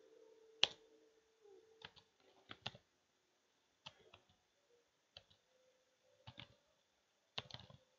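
Computer keyboard keys tapped a few at a time, a dozen or so sharp clicks at irregular spacing with pauses between, over a faint steady hum.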